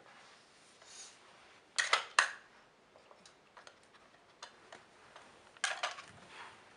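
Hard plastic pieces of a Trixie Strategy Game level 2 dog puzzle board clacking and rattling as a dog works at the sliders and cones with nose and paws. A loud cluster of clacks comes about two seconds in, another just before the end, with lighter ticks between.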